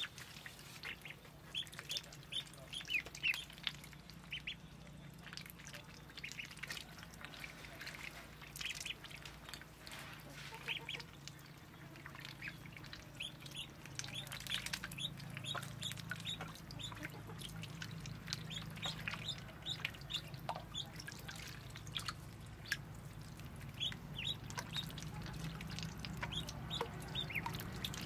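Ducklings peeping over and over in short, high calls as they swim and dabble in a tub of water, over a low steady hum.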